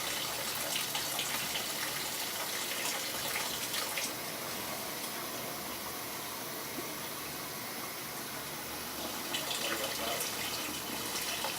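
Water running steadily from a faucet.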